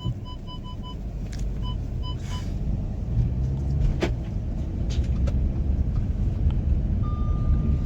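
Audi Q5 moving, heard from inside the cabin as a steady low rumble that grows slightly. The car's warning chime beeps in a quick series of short beeps during the first two seconds or so. Near the end a steady warning tone sounds, typical of the seat-belt reminder.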